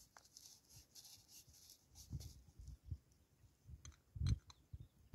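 Quiet handling noises: soft knocks and light clicks, with a cluster of sharp clicks and a knock about four seconds in as a small metal kettle is handled on a cinder-block hearth.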